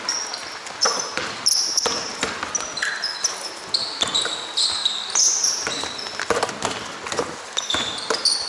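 Basketball game on an indoor court: sneakers squeaking in many short, high chirps on the floor, with a basketball bouncing in between.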